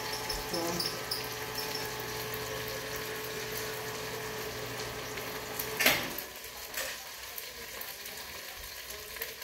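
Kitchen tap running steadily into the sink, shut off with a sharp knock about six seconds in. A few light knocks follow, like a glass being handled at the counter.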